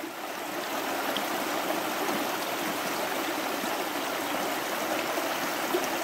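Shallow river running over rocks: a steady rush of flowing water.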